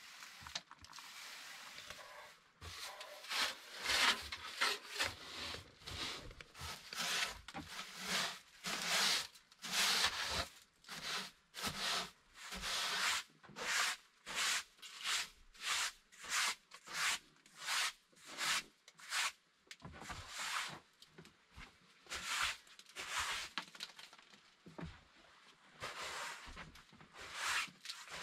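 Straw broom sweeping wooden planks: a brisk brushing swish repeated about once or twice a second, with the strokes thinning out for a few seconds late on.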